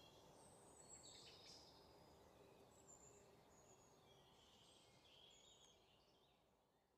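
Faint outdoor ambience: scattered bird chirps over a low, steady background hiss, fading out near the end.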